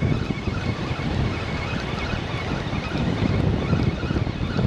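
Wind buffeting the microphone, over the steady wash of small surf breaking on the beach.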